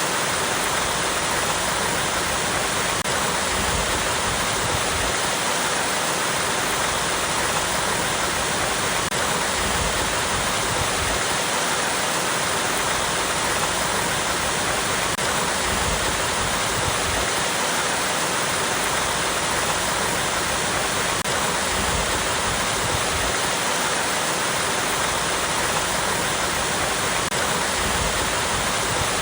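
Small waterfall cascading over rocks: a steady, unbroken rush of falling water.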